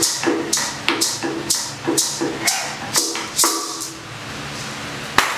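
Carved wooden Maya slit drums (tunkul) struck with mallets in a steady beat, about two strokes a second, each a hollow wooden knock with a bright high tail. The strokes stop about three and a half seconds in, leaving a faint ringing until a single sharp knock near the end.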